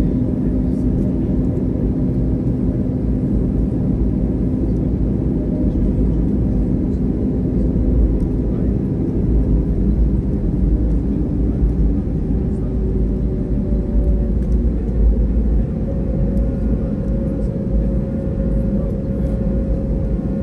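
Cabin noise inside an Airbus A320neo taxiing after landing: a steady low rumble from the ground roll and its Pratt & Whitney PW1100G geared turbofan engines at idle. One engine hum fades out about halfway through, and a higher hum comes in near the end.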